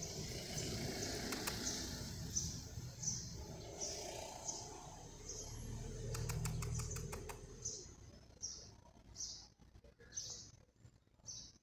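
A bird calling with a short, high chirp repeated about every two-thirds of a second, over a low background rumble that fades away about eight seconds in. A quick run of faint clicks comes about six seconds in.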